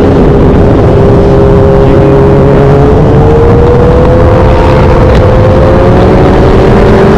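Sport motorcycle engine running at high, steady revs at highway speed. Its pitch rises slowly through the second half as the bike speeds up. Wind rumbles on the microphone throughout.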